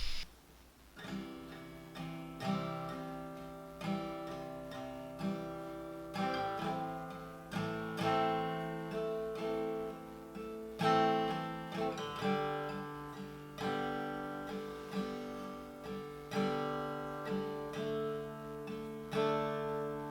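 Background music: an acoustic guitar playing slow plucked chords, each one ringing out and fading before the next.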